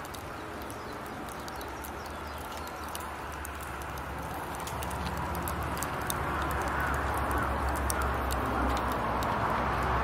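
Bone-in steaks sizzling on a wire grill over hot charcoal: a steady hiss with scattered small crackles and pops. It grows louder through the second half, with a low rumble building underneath.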